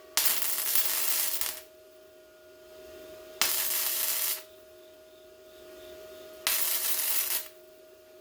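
Electric welder laying tack welds on truck-bed sheet metal: three short bursts of arc crackle, each about a second long, with a steady hum between them.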